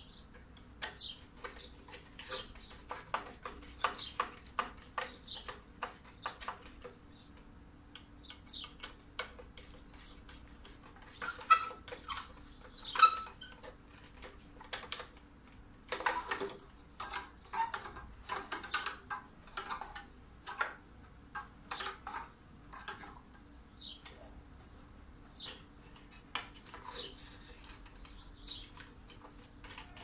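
Scattered small clicks, taps and scrapes of a screwdriver and a vacuum cleaner's plastic switch housing being handled during a repair, with two sharper knocks about eleven and thirteen seconds in and a quick run of clicks a little later.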